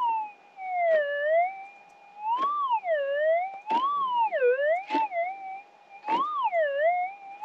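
Minelab GPX 6000 metal detector's tone warbling up and down as the coil is swept back and forth over a buried target, rising in pitch and dipping again about once every 1.3 seconds. A short click comes with each sweep.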